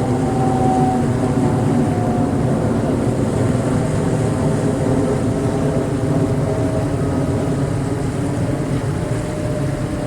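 A steady low engine-like drone with a faint tone that slowly falls in pitch, over a constant rush of noise.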